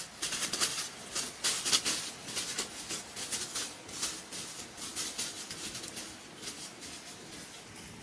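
Footsteps crunching through dry fallen leaves, a crackle with each step, fading as the walker moves away.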